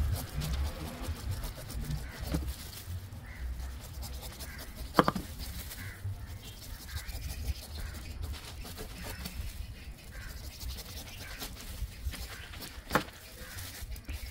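A kitchen knife slicing and paring the spiky rind of a young jackfruit: crisp cutting and scraping with small clicks. There are two sharp knocks, about five seconds in and near the end.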